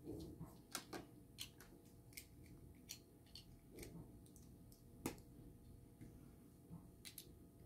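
Small plastic toy figures clicking as they are handled and their heads are pulled off and snapped back on: a scatter of faint clicks, the sharpest about five seconds in.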